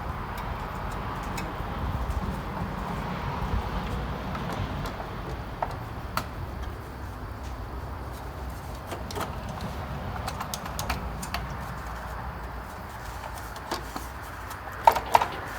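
Scattered light clicks and small knocks of hands working loose a compact tractor's body panels and light connectors, with a few sharper clicks near the end, over a steady low background rumble.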